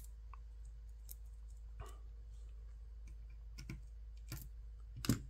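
Scattered light clicks and taps of small drone-frame parts and hardware being handled and fitted during assembly, the loudest just before the end.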